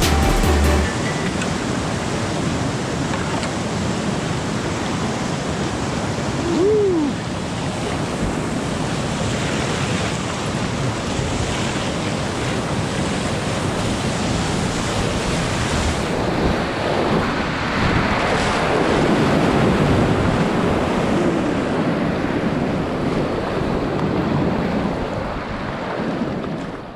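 Whitewater rapids rushing and churning close around a kayak, a steady loud roar of moving water heard from the boat itself. A brief short tone rises and falls about seven seconds in.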